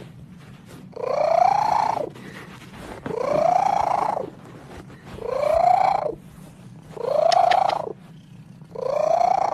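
Cat meowing five times, about every two seconds; each meow is long and rises then falls in pitch. A steady low drone runs underneath.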